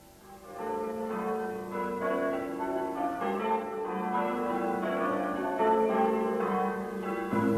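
Church bells ringing, fading in within the first second, with the notes changing quickly one after another. A lower sustained note joins near the end.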